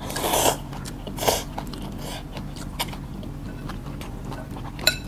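Bún rice-vermicelli noodles slurped up in a quick noisy draw, with a shorter slurp about a second later, then soft chewing and a light ringing clink of a utensil against a bowl near the end.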